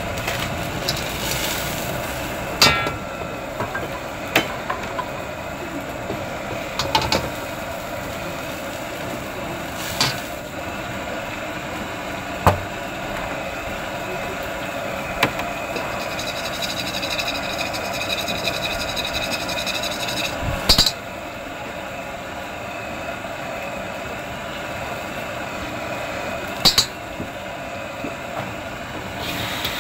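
Steady noise of a wok cooking over a strong gas burner, the steaming wok running without a break, with sharp metal clanks of the spatula against the wok every few seconds.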